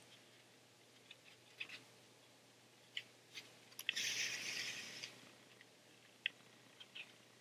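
Yarn being pulled through a punched hole in a cardboard book cover: a soft rasping swish lasting about a second, about four seconds in, among faint scattered clicks and taps from handling.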